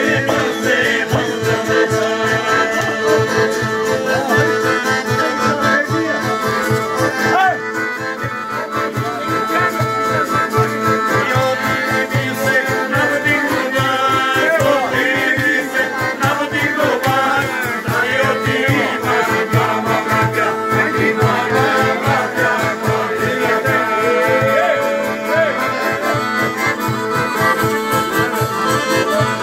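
Live folk music: a piano accordion plays a lively tune over a steady beat, with a long-necked plucked lute and a man's singing voice.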